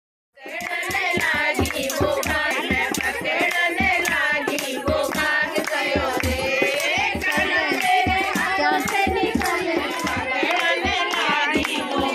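A group of women singing a devotional song together to steady rhythmic hand clapping. It starts abruptly about half a second in.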